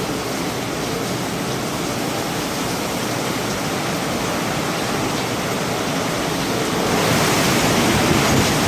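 Hurricane-force wind blowing with a steady rushing noise that grows louder about seven seconds in.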